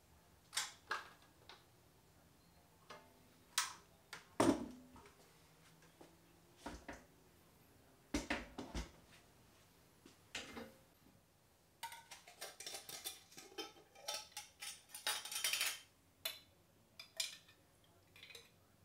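Kitchenware being handled: scattered clinks and knocks of a stainless pressure-cooker lid, then glass jar and spoon clatter, with a denser run of rapid clicks and scraping about two-thirds of the way through.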